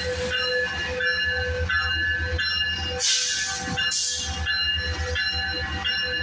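Metrolink F125 diesel-electric passenger locomotive running close by, with a steady pulsing low engine rumble and a repeating pattern of high ringing tones over it. Two short sharp air hisses come about three and four seconds in.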